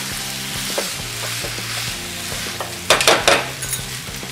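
Schezwan noodles and vegetables sizzling in a hot wok as they are tossed and stirred with a metal spoon and a wooden spatula. About three seconds in, a quick run of sharp clatters as the utensils strike the pan.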